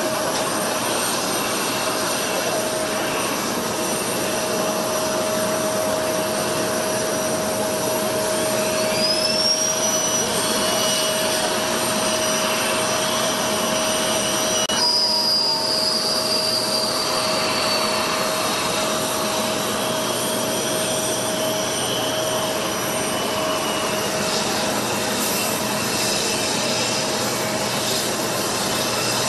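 Jet aircraft turbine running, a steady rushing noise with a constant hum. A high whine rises about nine seconds in and slowly falls away from about fifteen seconds.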